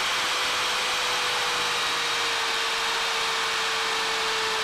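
Craftsman corded drill running steadily as it bores through a Beadlock doweling jig into wood, its motor whine dropping a little in pitch about two seconds in.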